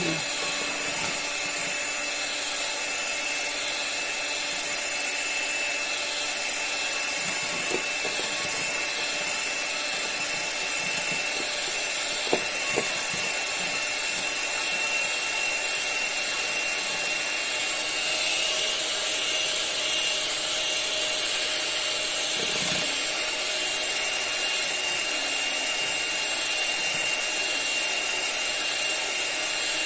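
Electric hand mixer running steadily, its beaters whisking eggs and sugar in a stainless steel bowl, with a constant high motor whine. A couple of brief knocks partway through.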